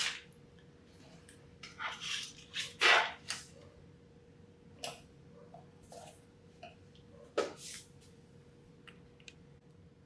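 Scattered light knocks, clicks and rustles of plastic doorbell mounting hardware being picked up and set aside on a table. The loudest knock comes about three seconds in, with a sharp click about halfway through.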